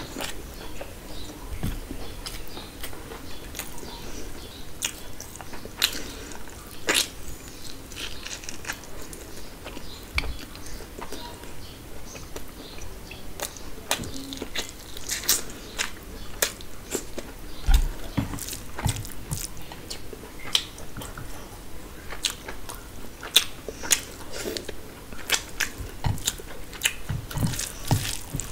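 Close-up eating sounds: a person biting and chewing mouthfuls of biryani rice and mutton, with frequent irregular mouth clicks and smacks.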